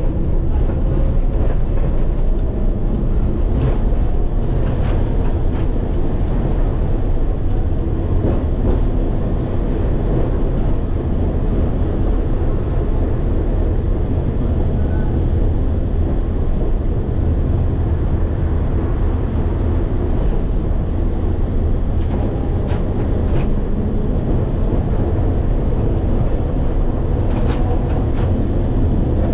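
Old museum tram running on street track, heard from the driver's cab: a steady low rumble of motors and wheels, with scattered short clicks and knocks through it.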